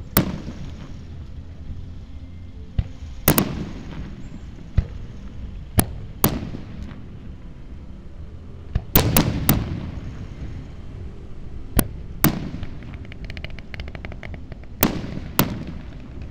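Aerial fireworks shells bursting: about a dozen sharp bangs, several coming in pairs half a second apart, each followed by a rolling echo. Toward the end there is a spell of fine crackling.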